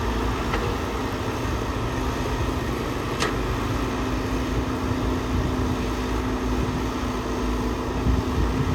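Heavy diesel construction machine engine running steadily with a low rumble and a held tone. A short sharp click about three seconds in.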